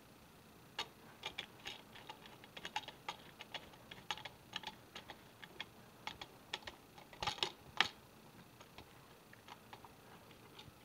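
Irregular run of small sharp clicks and taps from a screwdriver working the terminal screws of a light switch as the wires are tightened down, with a denser, louder cluster near the end before they thin out.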